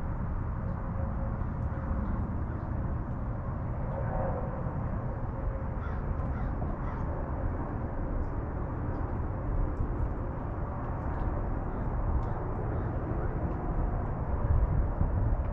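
Crows cawing a few times over a steady low rumble of wind on the microphone.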